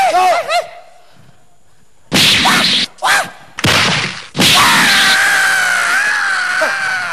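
Staged scuffle: a short wailing voice, then three short noisy swishes or hits between about two and four seconds in, then a long, loud, high cry that wavers in pitch for nearly three seconds.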